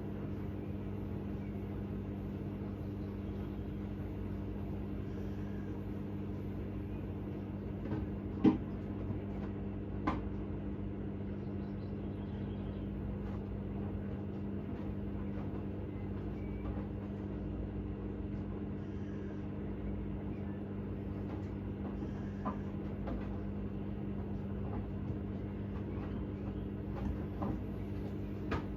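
Hoover H-Wash 600 washing machine running with a steady hum. There are two sharp knocks about eight and ten seconds in, and a few fainter ticks later on.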